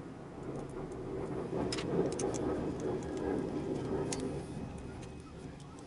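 A few light metal clicks of small screws, lock nuts and hand tools being handled on RC helicopter frame parts, over a low rumble that swells about a second in and fades away near the end.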